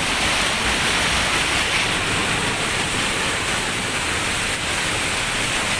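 Steady rush of flowing water, a continuous hiss without breaks.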